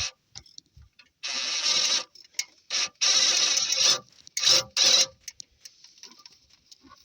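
A tool running a bolt in three bursts of about a second each, with faint scattered clicks between and after them.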